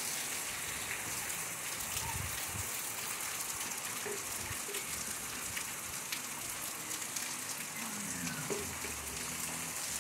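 Steady rain falling on clay-tiled roofs and a wet stone-paved street: an even hiss with scattered sharp drip ticks.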